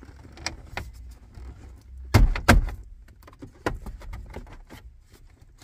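A plastic dash trim bezel holding an aftermarket double-DIN car radio being pushed into a car's center dash, with a series of plastic clicks and knocks; the two loudest come close together a little over two seconds in.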